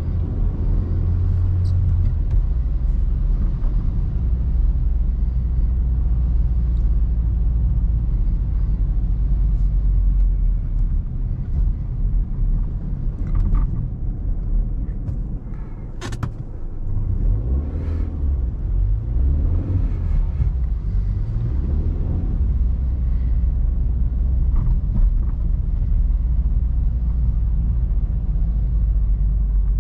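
A 2005 Opel Meriva's 1.4-litre 90 hp petrol four-cylinder and the road under the car, a steady low rumble while driving. About halfway through the sound briefly eases off with a click, then the engine note rises and falls for several seconds before settling back to the steady drone.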